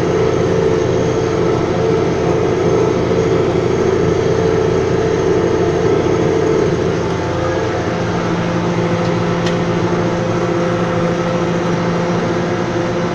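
Tractor engine running steadily under load in the field, with its pitch and level dropping slightly about seven seconds in.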